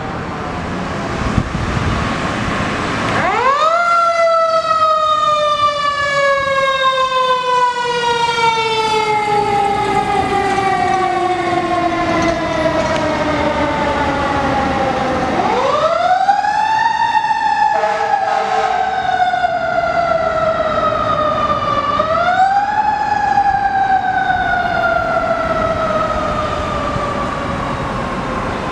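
Fire engine siren winding up three times. Each time it rises quickly to a high wail, then falls slowly in pitch as it winds down. A short steady blast comes about halfway through.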